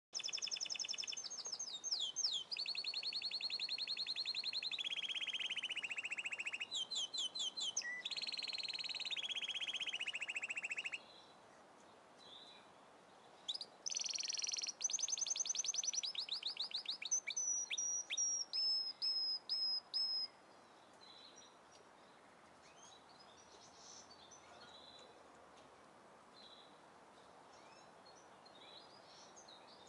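Songbird singing loud, rapid high trills held on steady pitches that step from one pitch to the next, in one long stretch of song and then a second after a short pause about 13 seconds in; afterwards only a faint steady hiss.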